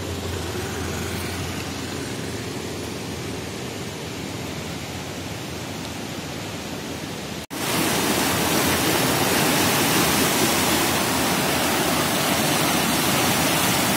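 Steady rush of the Valvanti river in spate, muddy floodwater churning below a bridge. About seven and a half seconds in it cuts out for an instant and comes back louder.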